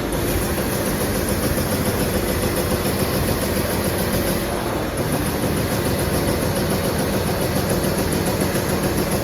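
Amada EMZ 3510 NT CNC turret punch press running, a loud, steady, dense mechanical noise with no clear separate strokes.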